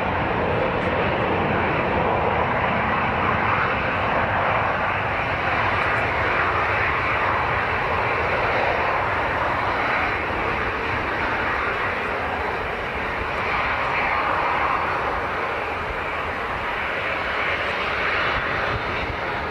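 Airliner engine noise, a steady, even rush that eases slightly in the second half.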